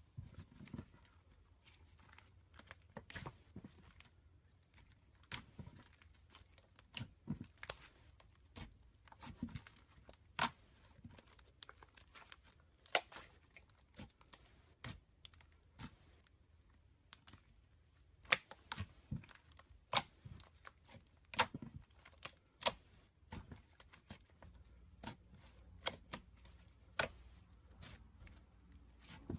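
Slime being handled, giving irregular sharp pops and clicks, a few a second, as trapped air bubbles burst.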